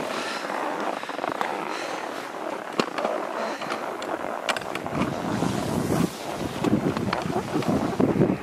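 Skis scraping and hissing over snow, with scattered sharp clicks. Wind buffets the microphone, heavier from about five seconds in.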